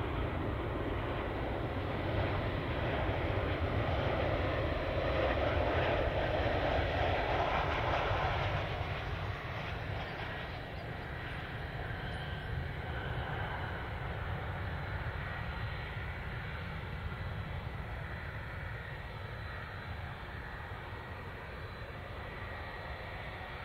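Jet engine noise from a Boeing 737-800's CFM56-7B turbofans as the airliner comes in to land. The rushing roar is loudest for the first eight seconds or so, then settles lower and steady as the aircraft rolls out down the runway away from the listener.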